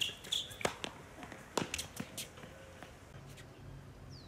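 Tennis ball being struck with rackets and bouncing on a hard court during a baseline rally: four or five sharp pops in the first two seconds, then quieter.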